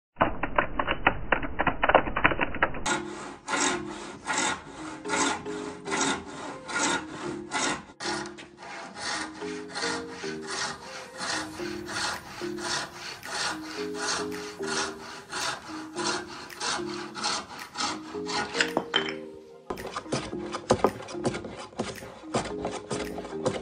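Hand saw with a thin blade cutting through a wooden board in steady back-and-forth strokes, with music underneath. Near the end it changes to a hand plane shaving a block of wood in short strokes.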